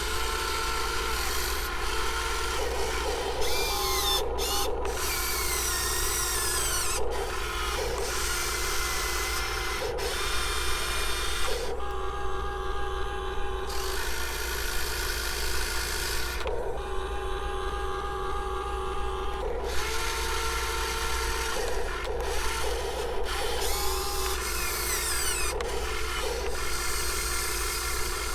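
Top Race RC excavator's small electric motors and gearboxes whining as the arm and bucket work, starting and stopping every second or two with the pitch gliding up and down, along with the bucket scraping through dirt.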